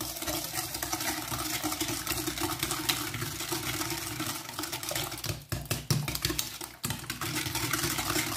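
Hand whisk beating eggs and sugar in a glass bowl: a fast, steady clatter of the whisk against the glass, pausing briefly a couple of times a little past halfway.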